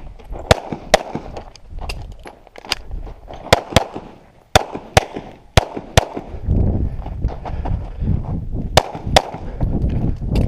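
Pistol shots fired during a stage string at an irregular pace, sometimes in quick pairs and sometimes with pauses of two or three seconds between them. A low rumble runs under the shots from about halfway through.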